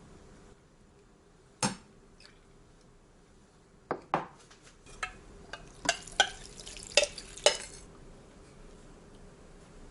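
Utensils clinking and knocking against dishes: a single knock, then two more, then a quicker run of clinks near the end.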